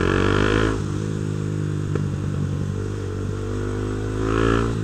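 Honda CB Twister's single-cylinder engine running through an aftermarket Protork sport exhaust while riding, at a fairly steady pitch. A brighter, higher sound stands out briefly at the start and again near the end.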